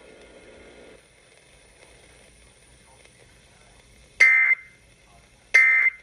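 Emergency Alert System SAME end-of-message data tones: after about four seconds of low hiss, two short bursts of data tones about 1.3 seconds apart, marking the end of the tornado warning broadcast.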